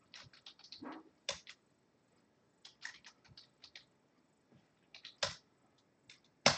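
Typing on a computer keyboard: irregular key clicks with short pauses, one louder click near the end.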